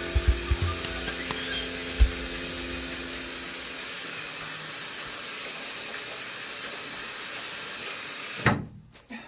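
Bathroom sink tap running steadily while hands are washed under it, a steady hiss of water that stops abruptly near the end.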